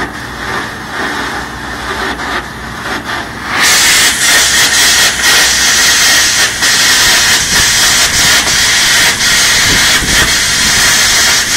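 Electric arc welding on heavy steel: a crackling arc over a steady background noise, then about three and a half seconds in a much louder, steady hiss with crackle sets in and holds.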